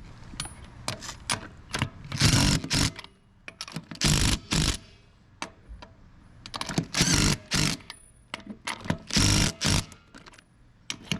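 DeWalt cordless drill spinning lug nuts down onto a wheel in short bursts, mostly in pairs a couple of seconds apart, now running strongly on a fresh battery.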